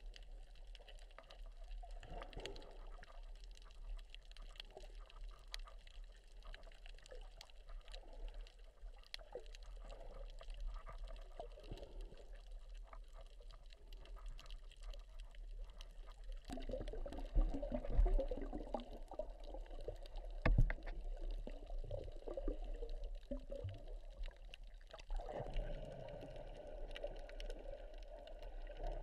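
Water heard through an underwater camera: muffled sloshing and gurgling, with faint scattered clicks throughout. The sloshing swells a little past halfway, with a couple of low thumps, and again near the end.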